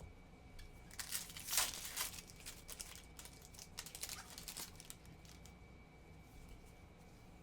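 Foil wrapper of a Topps baseball card pack crinkling as it is handled and opened, a cluster of rustles lasting a few seconds, loudest about a second and a half in, then quiet.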